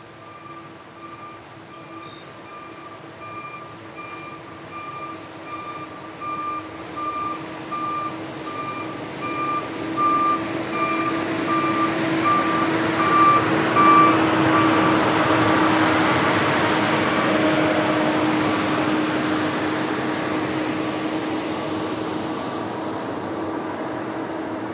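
Hi-rail crane truck travelling along the railroad track, its backup alarm beeping at an even pace as it comes closer, over a steady engine and wheel hum. The beeping stops a little past halfway, and the hum grows loudest as the truck passes, then fades away.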